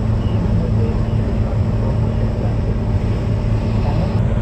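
Steady engine and road noise heard inside the cabin of a moving truck, with a constant low hum.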